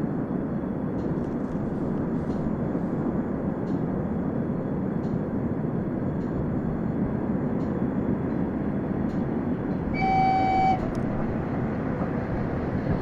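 Passenger train running on the rails, a steady low rumble, with one short toot of the locomotive's horn about ten seconds in.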